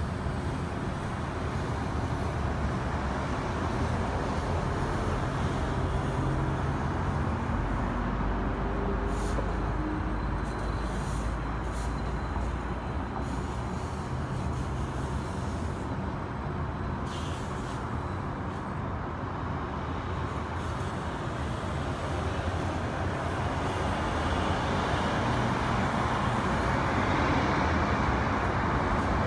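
Steady low hum of distant city traffic, getting slightly louder near the end.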